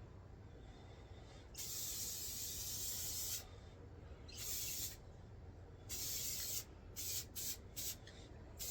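Spray can of clear finish hissing out in bursts: one long spray of about two seconds, two shorter ones, then a quick run of short puffs near the end.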